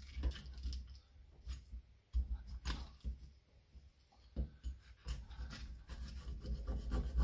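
A knife cutting through a woodpigeon carcass on a wooden chopping block: faint, scattered crunches and scrapes with light knocks against the wood.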